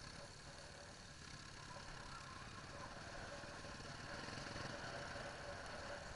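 Off-road trail motorcycle engine running steadily while riding along a bumpy dirt forest track, mixed with a steady rumble of noise.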